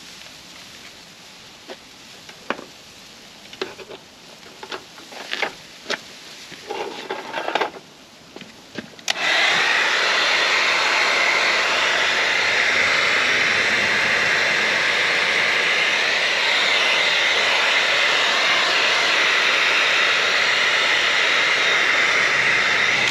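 Masking tape and paper crackling and tearing as a bumper is masked for paint, then a loud, steady hiss of compressed air from a paint-shop air tool starts suddenly about nine seconds in.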